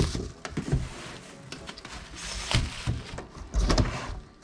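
Handling noise from a cardboard box being rummaged: irregular scrapes and knocks of the cardboard flaps and rustling of plastic-wrapped firework shells, with a heavier thump a little before the end.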